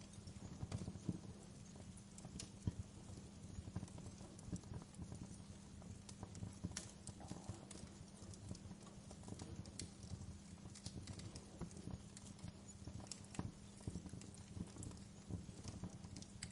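Wood fire in a fireplace crackling: irregular pops and snaps over a low, steady rumble.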